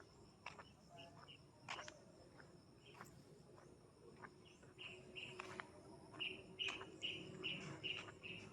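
Outdoor birdsong over a faint, steady high insect drone. There are scattered short chirps, and from about five seconds in one bird repeats a short call two to three times a second.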